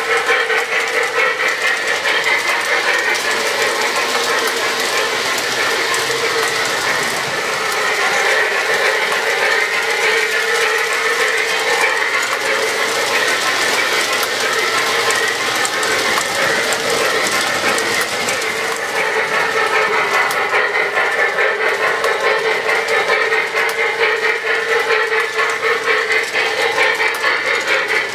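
Sound system of a brass O-gauge Southern Pacific GS-4 steam locomotive model (QSI QS2 Plus board) playing a rhythmic steam exhaust, with the clatter of the model train's wheels on the track as it runs past.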